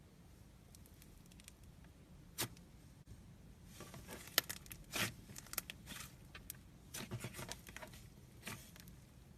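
Slime being squeezed and stretched by hand: faint, scattered sticky clicks and small crackling pops, a few sharper ones near two and a half and five seconds in.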